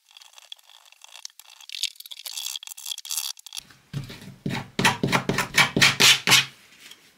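Rubber-gloved hands rubbing and scraping fur off a wet rabbit skin on a table: light scratching at first, then a run of quick rubbing strokes, about four a second, from about halfway in.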